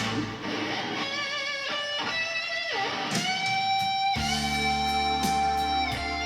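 Instrumental break in a song: a lead guitar plays long held notes that bend and waver with vibrato over bass and light cymbal taps, with no singing.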